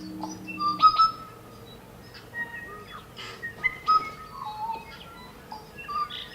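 Birds chirping and whistling: a string of short calls and clear whistled notes, some sliding up or down.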